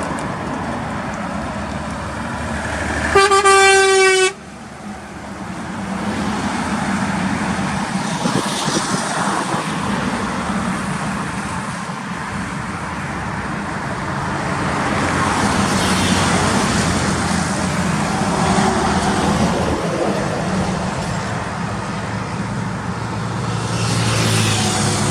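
A single loud horn blast lasting about a second, roughly three seconds in, cutting off sharply, over steady truck and traffic noise.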